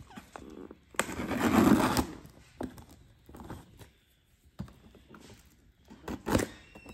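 Cardboard box being opened by hand. A loud tearing scrape lasts about a second, starting about a second in, followed by scattered taps and scrapes of the cardboard flaps and a sharper scrape near the end.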